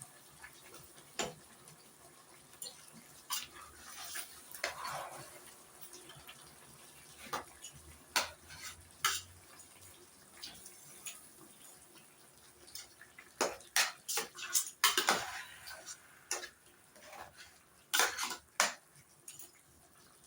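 Pots, dishes and metal utensils clinking and knocking in a kitchen: scattered clinks, with busier clattering spells about two-thirds of the way through and again shortly after.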